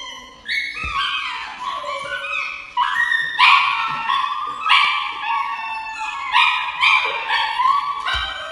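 A dog howling and whining in a string of long, high cries that jump from one pitch to another, loudest from about three seconds in. These are cries of protest from a dog held still for an injection.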